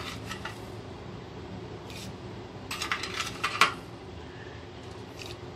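Wooden spatula scraping and knocking against the inside of a steel pot of thickening milk as it is stirred: a few scattered clicks, then a quick run of louder knocks about three seconds in, over a low steady hum.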